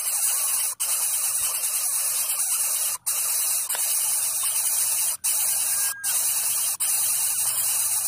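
Steady high-pitched hiss, like static, broken several times by split-second dropouts to silence.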